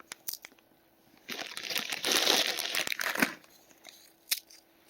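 Potato chip bag crinkling in one dense rustle of about two seconds, after a few light ticks. A single sharp click follows near the end.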